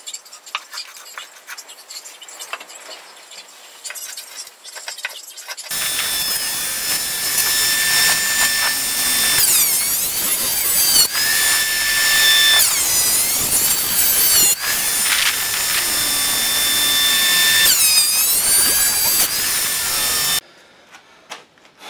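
Electric bench planer-thicknesser running with a high whine, its note dipping and recovering several times as pallet-wood paddle blanks are fed through and cut; it stops abruptly near the end. Before it, a few seconds of quieter scraping and tapping of a hand tool on wood.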